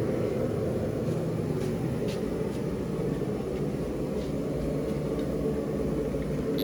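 Steady low mechanical rumble with a constant hum, and a few faint light ticks over it.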